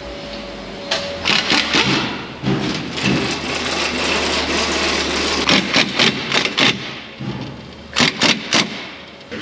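Air impact wrench rattling in about four short bursts, driving suspension bolts, over a steady low hum.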